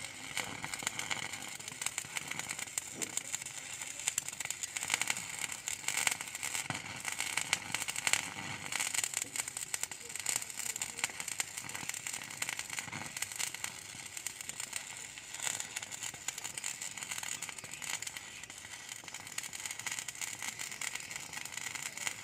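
Stick-welding arc from an inverter welding machine, crackling steadily as the electrode burns through a steel rebar to cut it.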